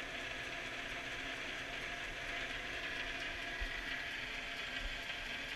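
South Bend 9-inch lathe running steadily under power at low speed, driven by its flat belt with the back gear engaged. It makes a continuous gear whir and chatter, with a few faint knocks.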